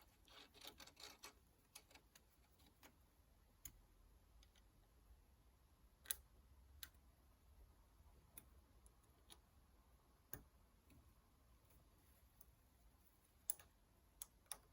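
Near silence broken by scattered faint clicks and light metallic taps of small lathe tooling being handled and refitted in its holder.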